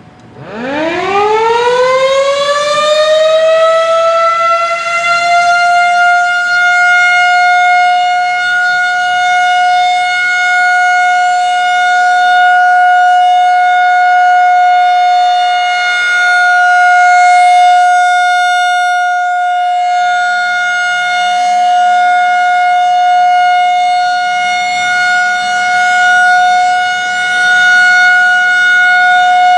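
Federal Signal 2001-130 electromechanical tornado siren starting up for a test: it winds up from a low pitch, rising over about five seconds to a steady high tone, which it holds.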